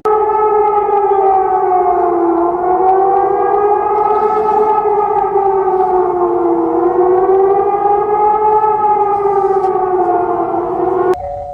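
Civil defence warning siren wailing loudly: several tones at once slowly rise and fall in pitch, about one cycle every four seconds, then cut off sharply near the end.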